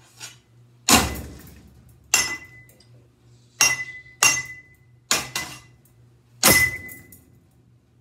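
A baseball bat striking a spinning ceiling fan six times, each hit a sharp knock, several of them followed by a short clear ring.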